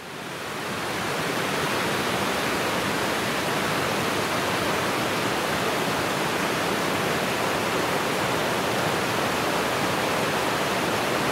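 Steady rushing of a mountain stream, rising up over the first second and then holding even.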